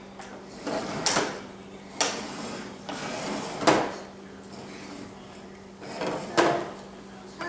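Dishwasher rack rolling out and back in on its rails, four times in a row, each slide rattling and ending in a sharp knock.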